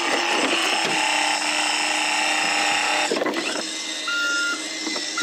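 Toy garbage truck's electronic sound effects: a steady humming engine sound, a short plastic clatter about three seconds in, then a high reversing beep near the end.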